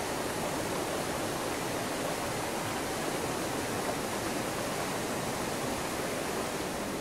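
Water rushing steadily over rocks in a stream.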